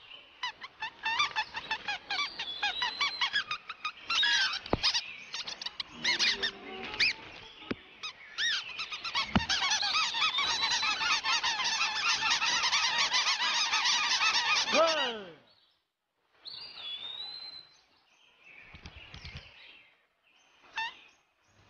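Cartoon birds chattering and squawking as a crowd, a dense babble of quick high chirps and honks with a couple of knocks mixed in. The babble cuts off sharply about fifteen seconds in, leaving a few scattered squawks.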